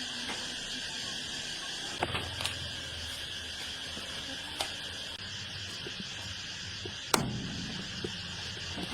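A steady high chirring of insects, with a few scattered sharp knocks, the loudest about seven seconds in.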